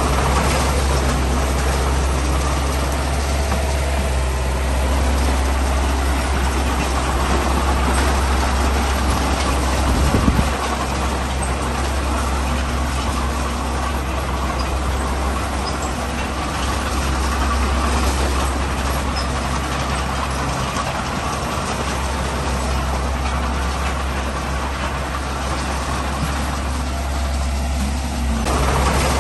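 Heavy diesel engine of earthmoving machinery running steadily with a deep, low drone, with one brief louder knock about ten seconds in.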